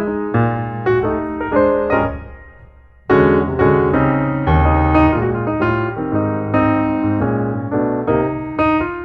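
Background piano music: the notes die away about two seconds in, then a fuller passage comes in suddenly about three seconds in.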